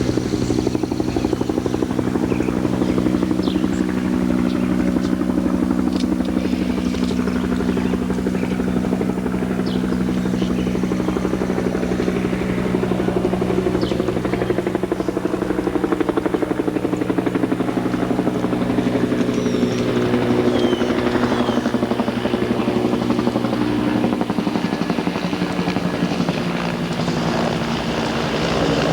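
Helicopter flying nearby, a steady rotor beat and engine drone. Its pitch eases slightly downward in the second half.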